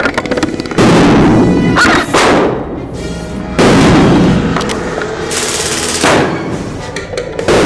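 Airsoft guns firing in three loud bursts about a second long each, with music underneath.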